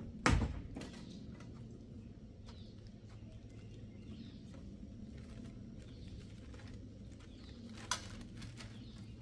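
Two sharp knocks, a loud one just after the start and a smaller one near the end, over a faint steady low hum with faint bird-like chirps.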